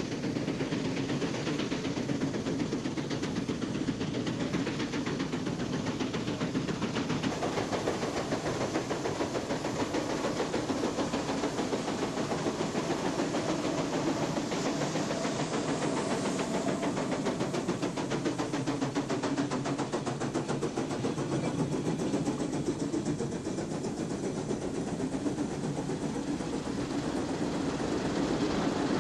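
Steam traction engine running, with a fast, even exhaust beat over a steady mechanical clatter and hiss of steam.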